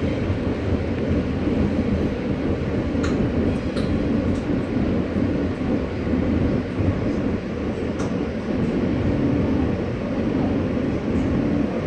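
Inside an R160A subway car running between stations through the tunnel: a steady low rumble of wheels on rail and running gear, with a few sharp clicks.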